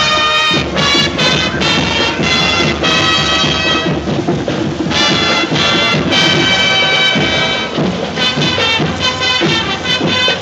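High school marching band playing: held wind-instrument notes rich in overtones over drum hits.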